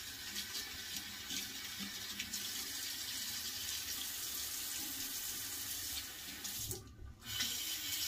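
Water running steadily from a bathroom sink tap, with a short break about seven seconds in before the flow sound returns.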